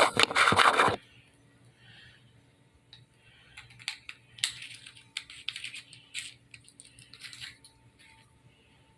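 AAA batteries and the plastic parts of an LED flashlight's battery holder being handled as the batteries are loaded: a loud scraping rustle in the first second, then scattered small clicks and taps.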